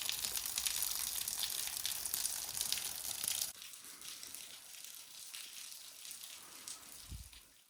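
Footsteps crunching and crackling on a rocky, leafy hiking trail, with many small cracks. The sound drops in level about three and a half seconds in, then cuts off at the end.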